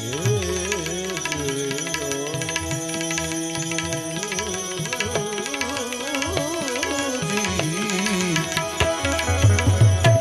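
Devotional bhajan music with tabla accompaniment under a wavering, ornamented melody line, and no sung words. About nine seconds in, heavy low bass-drum strokes come in.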